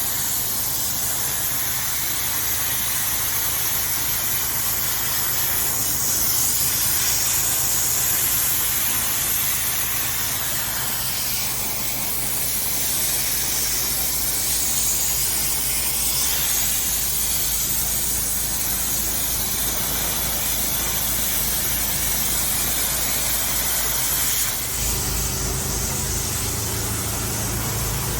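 Pressure washer engine running steadily under the hiss of its high-pressure water jet, which is stripping acrylic paint off wooden deck boards. The engine note shifts a little near the end.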